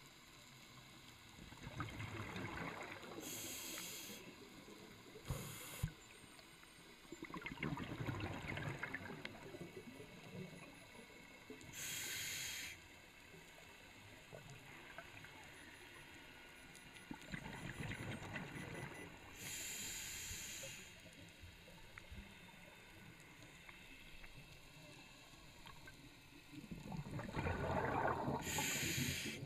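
Scuba regulator breathing underwater: four rushes of exhaled bubbles, roughly every nine seconds, with short hissing inhalations through the demand valve between them.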